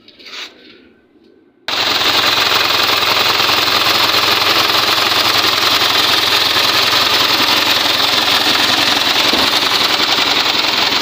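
Isuzu 4HF1 four-cylinder diesel engine running, loud and steady, cutting in abruptly about two seconds in. The engine has just been overhauled with new piston rings, head gasket and valve seals to cure blow-by.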